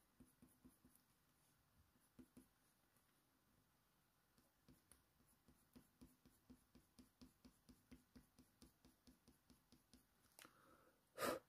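Faint strokes of a Faber-Castell Polychromos coloured pencil on hot-press watercolour paper, pressed hard in quick, even flicks about three a second for fur detail, with a brief louder sound near the end.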